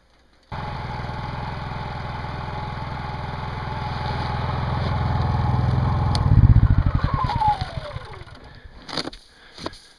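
Snow-covered portable generator running steadily, then switched off about six seconds in: a brief loud shudder, then the engine coasts to a stop with slowing pulses and a falling whine over about two seconds. A few sharp knocks follow near the end.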